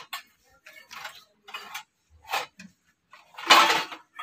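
Irregular metallic clinks and rattles as a small Jasco petrol engine, not yet running, is handled, with a longer, louder rattle about three and a half seconds in.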